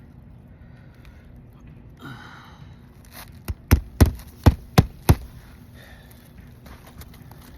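A hammer driving a roofing nail through an asphalt shingle: about six quick, sharp strikes in under two seconds, starting about three seconds in.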